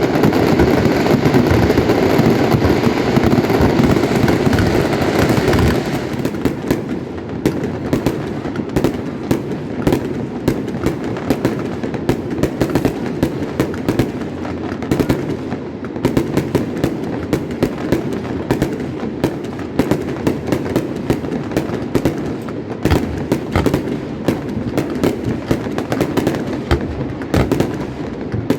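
Fireworks display: a dense, continuous mass of crackling and booming for about the first six seconds, then a rapid, uneven string of sharp bangs and crackles that keeps going.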